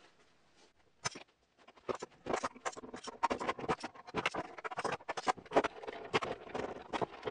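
Metal bar clamps and F-clamps being set around a glued plywood disc: sliding jaws clack and scrape into place and screw handles are tightened. This gives many sharp clicks and knocks, starting about a second in.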